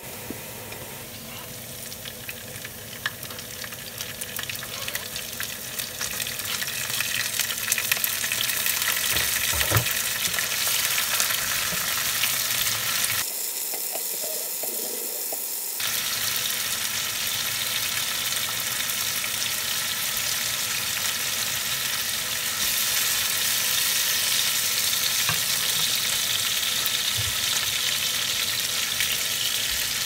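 Chopped garlic and fresh red chillies sizzling in hot oil in a nonstick frying pan, stirred with a spatula that scrapes and ticks against the pan now and then. The frying grows louder over the first several seconds and stays steady after that.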